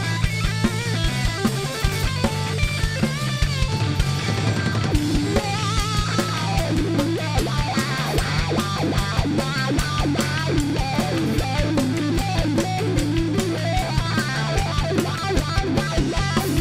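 Rock band playing live: a Stratocaster-style electric guitar plays lead lines with bent notes over electric bass and a steady drum-kit beat.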